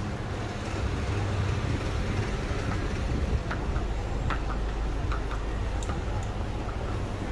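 Steady low rumble of vehicle engines and traffic in a city street, with a few faint short high clicks in the middle.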